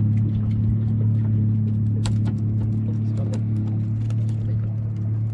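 Outboard motor idling with a steady low hum, with light scattered clicks of fishing tackle being handled.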